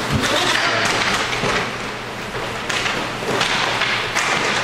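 Inline hockey game play: a steady rolling noise with several short, sharp knocks of sticks and puck.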